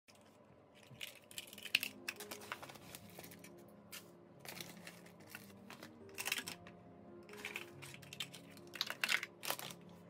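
Dry rolled oats being scooped with a plastic measuring cup and poured into a plastic bowl, in several short, crisp rustling bursts. Soft background music plays underneath.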